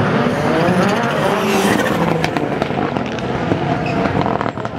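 Autocross race car engines revving hard on a dirt track, pitch rising and falling as the cars accelerate and lift off, with a few sharp cracks among the engine noise.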